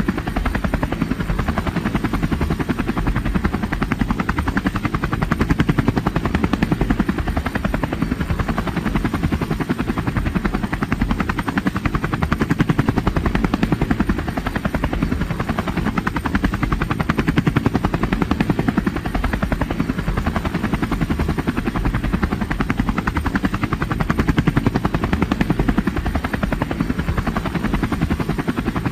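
Helicopter rotor blades chopping with a rapid, even beat over a steady engine whine, holding constant with slow, slight swells in loudness.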